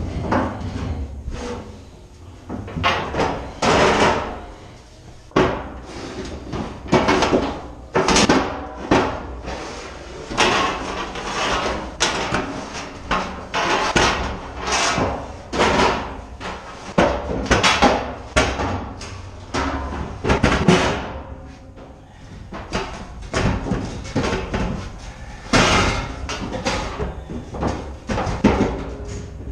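Empty 16-inch powder cans being handled and stacked among steel racks: a long, irregular run of clanks and knocks with a short ring after each, as the cans bang against one another and the rack.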